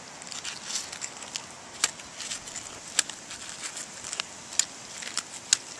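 An egg's shell being cracked gently and picked apart by hand: a scatter of small, sharp crackles and clicks at uneven intervals.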